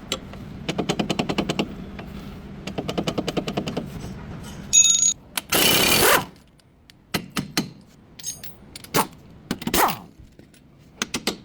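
Air impact wrench hammering in two bursts of about a second each, then a loud hiss of under a second and scattered metal clanks and knocks, as in front drive shaft removal work on a Nissan.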